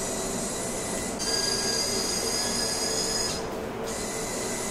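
Electric lift motor of a Robocam S sewer-inspection crawler whining as it drives the camera lift arm down. It is a steady high whine that grows louder about a second in and eases off after about three seconds.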